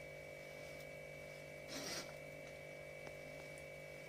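A spoon scoops soft, moist milk curds from a mesh strainer into a stainless-steel mixer jar, with one brief soft scrape about two seconds in. A faint steady hum runs underneath.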